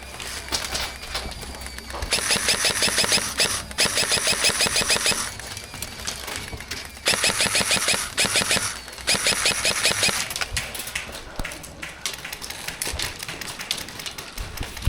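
Airsoft rifle firing full-auto, four rapid bursts of about a second and a half each, two in quick succession and then two more after a pause of about two seconds. Fainter scattered clicks follow.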